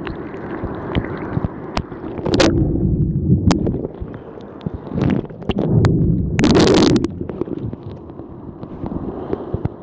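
Breaking surf and foam washing around a phone held at water level, with wind on the microphone. Water splashes over the phone loudly about two and a half seconds in and again for about half a second around six and a half seconds.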